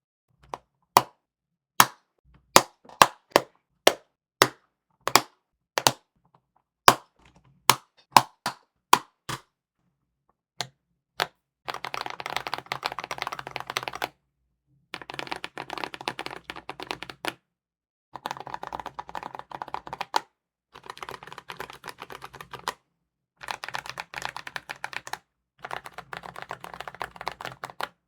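Mechanical keyboard (Redragon Wyvern LCD Pro) clicking: first a run of single sharp clicks about two a second, then from about a third of the way in several bursts of fast typing with short pauses between them. The typing is too loud for its owner.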